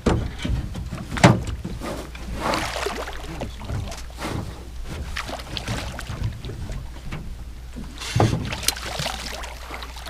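A hooked smallmouth bass splashing and thrashing at the surface beside an aluminum boat, in bursts about two and a half seconds in and again near the end, with sharp knocks on the boat near the start, over a low steady rumble.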